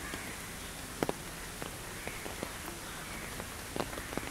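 Steady rain falling on foliage, with scattered sharp drop strikes, the loudest about a second in and near the end.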